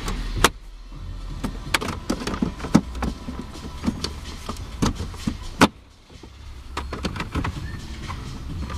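Irregular sharp clicks and knocks of hands and tools working on a car's dash parts, over a low steady hum. The strongest knocks come about half a second in and again past the middle.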